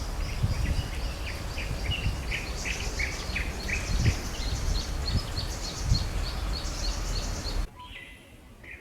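Small birds calling in quick, repeated short chirps over a low background rumble. About three-quarters of the way through, the sound cuts abruptly to a much quieter background with fainter, sparser bird calls.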